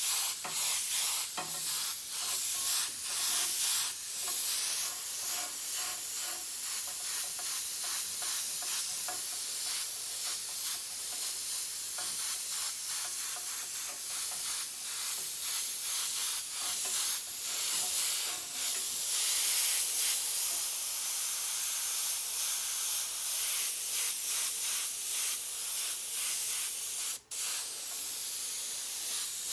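Airbrush hissing as it sprays paint, the air flow flickering as the trigger is worked. Near the end the hiss cuts out for a moment.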